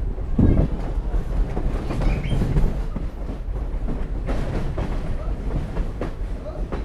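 Train rolling along the track: a steady low rumble with irregular clacks of the wheels over the rails.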